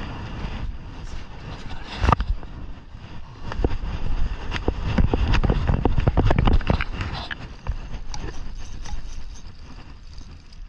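Footsteps crunching quickly through snow, with heavy, irregular thumps that are thickest in the middle seconds and ease off near the end, and clothing rubbing and knocking against the body-worn microphone.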